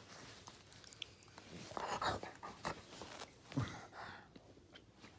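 Wolf dog mouthing at a person's hand and arm: irregular wet mouth clicks and smacks. The loudest come about two seconds in and again around three and a half seconds.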